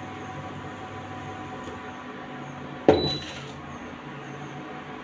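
A metal cooking pan set down on the induction cooktop with one sharp clank about three seconds in, ringing briefly. Under it runs the steady hum of the induction cooktop.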